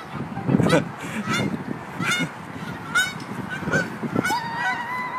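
Geese honking, about six short calls at nearly even intervals, the last one held longer near the end.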